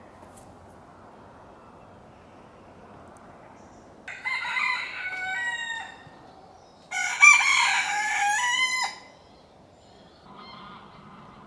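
A rooster crowing twice, each crow lasting about two seconds, with a short pause between them. Fainter calls begin near the end.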